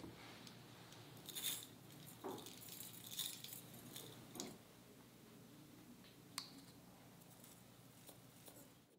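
Faint scraping and clinking of a metal spoon scooping brown sugar out of a glass jar and tapping it over a glass mixing bowl, with a short sharp click about six seconds in.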